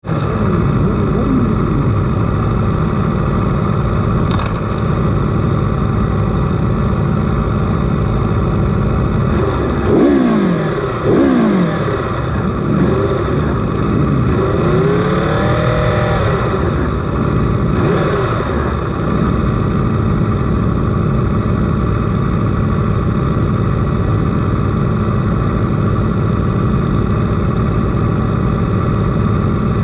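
Sportbike engines idling on a race start grid, the on-board Aprilia's engine close to the microphone. Between about ten and seventeen seconds in, engines are blipped a few times, the revs rising and falling.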